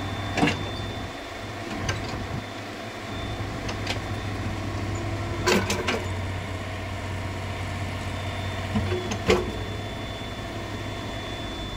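Mini excavator's diesel engine running steadily as its boom and bucket are worked, with sharp metal clanks about half a second in, a short cluster a little past halfway, and a couple more near the end.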